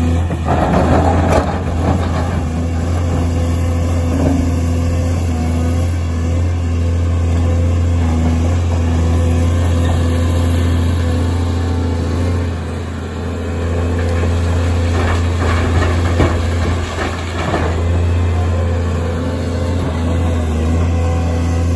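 Caterpillar 336 hydraulic excavator's diesel engine running under digging load with a steady low drone. Bursts of rock clatter and scraping come as the bucket works broken rock, near the start and again about two-thirds of the way through.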